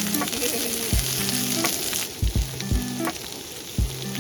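Food sizzling and frying on a hot camping grill, a steady crackling hiss that is strongest in the first couple of seconds. Background music with a steady beat and bass line plays over it.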